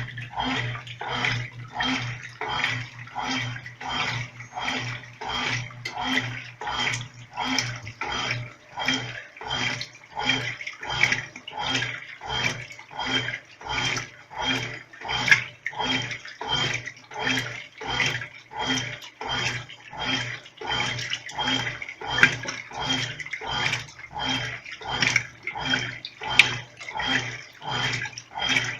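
Brastemp Clean 5 kg top-loading washing machine agitating clothes in water on its delicate setting: the agitator strokes back and forth a little more than once a second, each stroke a motor hum with a swish and slosh of water.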